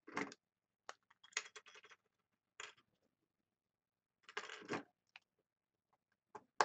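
Hockey trading cards being flipped and slid across one another by hand: a series of short papery scrapes and flicks with quiet gaps between them.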